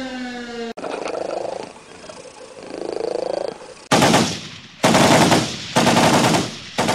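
A falling pitched tone cuts off just under a second in, followed by a cat meowing. From about four seconds in come four loud bursts of rapid machine-gun fire, each under a second long, spaced about a second apart.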